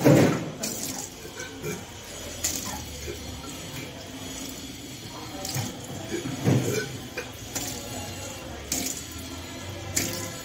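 A person retching and bringing back up the water he has drunk, in irregular gushes that splash down, the loudest near the start. This is kunjal kriya, the yogic cleanse of drinking water and vomiting it out to empty the stomach.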